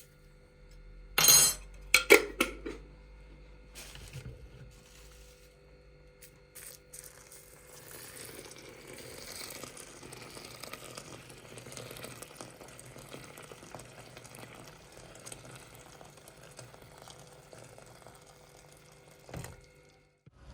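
Kitchen handling sounds: a few sharp knocks and clatters of kitchenware about a second in, then quieter continuous scraping and small clicks of food preparation.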